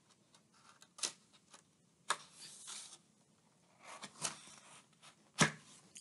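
Pages of a picture book being turned and handled: scattered taps and short paper rustles, with a sharper knock near the end.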